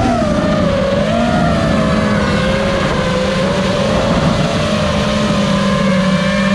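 FPV drone's electric motors and propellers whining steadily, the pitch wavering slightly with the throttle over a rush of noise.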